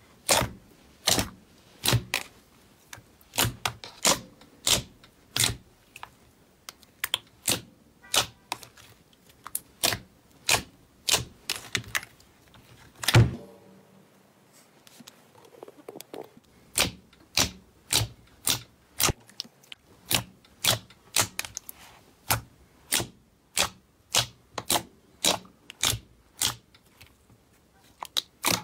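Thick white slime being pressed and squeezed by hand, giving a run of sharp clicks and pops from trapped air, roughly one or two a second. There is a short lull about halfway through, right after the loudest pop.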